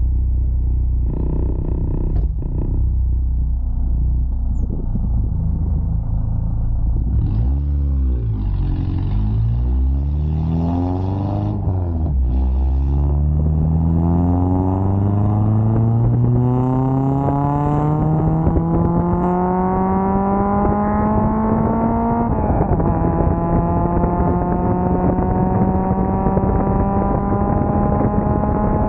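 Straight-piped Nissan SR20VE (VVL) four-cylinder engine pulling a car. After a low rumble and a few quick revs, the pitch climbs steadily for about ten seconds, drops sharply at a gear change, then climbs slowly again.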